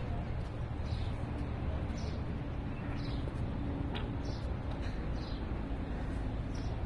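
Birds chirping, short falling calls about once a second, over a steady low rumble.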